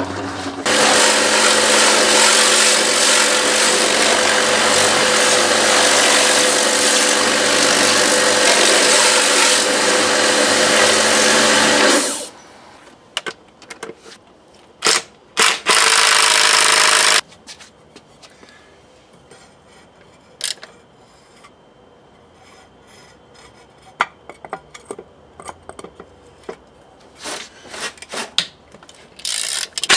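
A loud, steady hissing noise with a constant hum fills roughly the first eleven seconds. After it, a cordless drill driver runs in short bursts on the motorcycle's footpeg bolts, followed by scattered ratchet clicks as bolts are worked loose by hand.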